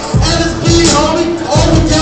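Hip hop instrumental beat playing loud over a hall's sound system, with deep bass kicks repeating and a held low melody note.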